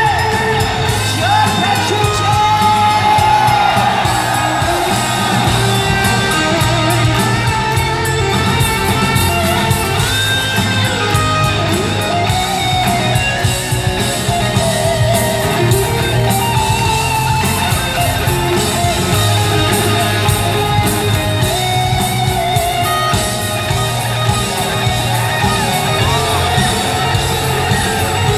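Live rock band playing at full volume: electric guitar, bass and drums, with a wavering, bending lead line above them.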